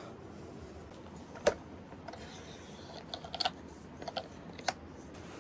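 Metal frame and legs of a camping cot being handled and fitted: a sharp click about a second and a half in, then a quick run of clicks and knocks in the second half.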